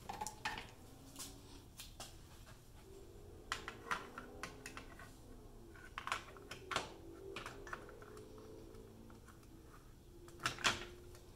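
Steel tool hooks clicking and knocking against a plastic wall-mount organizer rail as they are pushed and seated into its slots by hand, in scattered irregular clicks.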